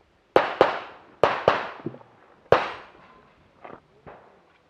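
Pistol shots: two quick double taps about a second apart, then a single shot, each trailing off in a ringing echo.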